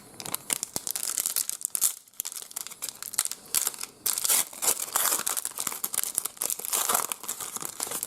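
Trading card pack wrapper being torn open and crinkled, a busy crackling rustle with a couple of short pauses.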